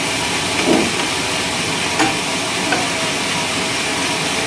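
Sawmill machinery running, a steady hiss-like noise, with a few short knocks.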